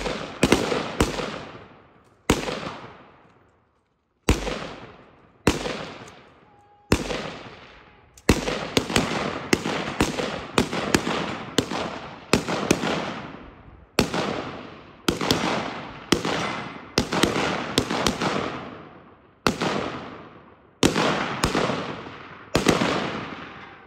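Rifle gunfire from several shooters: about thirty single shots at an uneven pace, some in quick strings of two or three a second, others a second or two apart. Each shot is followed by an echo that dies away over about a second.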